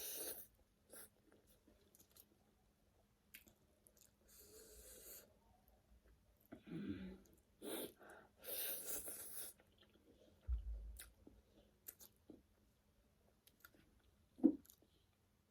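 Close-up mouth sounds of someone eating spicy noodles: soft chewing and wet clicks, with two longer hissing draws of air partway through. A short sharp knock comes near the end.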